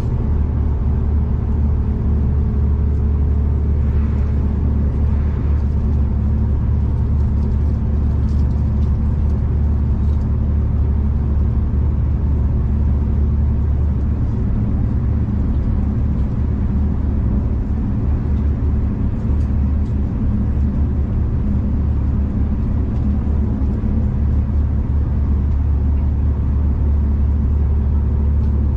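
V/Line passenger train running steadily, heard from inside the carriage: a constant low rumble with a steady hum.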